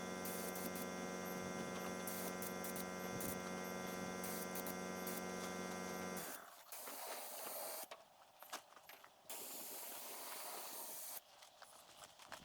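A steady electric motor hum made of many even tones, likely from the paint-spraying equipment, cuts off abruptly about six seconds in. Fainter hissing with short breaks follows.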